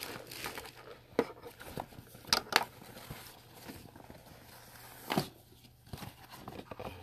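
Fabric tackle hip pack being handled and turned over: rustling of the bag material, with a few sharp clicks, two in quick succession about two and a half seconds in and another about five seconds in.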